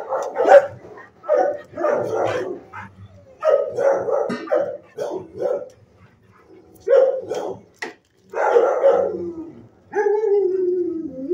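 Dog barking repeatedly in short volleys, then a long whine-like call near the end that falls in pitch.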